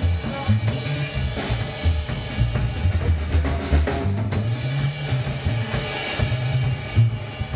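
Live rock band playing: an electric bass guitar carries a moving bass line over a drum kit's kick, snare and cymbals.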